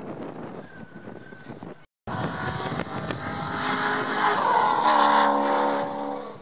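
Cars on the track are heard faintly at first. Then a race car's engine passes close by at speed, getting louder, its pitch falling as it goes past, and fading as it pulls away.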